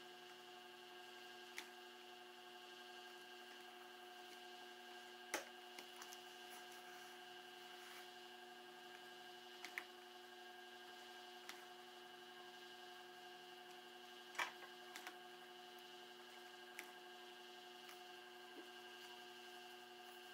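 Industrial sewing machine stitching leather: a faint steady motor hum, with a few scattered single clicks, the loudest about two-thirds of the way in.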